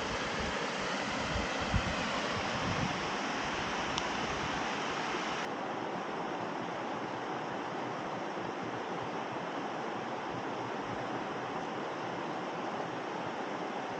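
Steady rush of a rain-swollen stream and its cascade, with a few dull knocks in the first few seconds.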